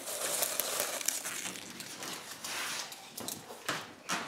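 Rustling and crinkling handling noise with scattered small clicks and crackles.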